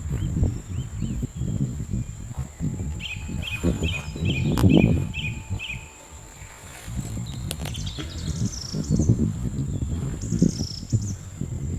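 Small birds chirping: a quick series of short, repeated chirps a few seconds in, then higher chirps near the end. Under them is a steady high-pitched whine and uneven low rumbling noise.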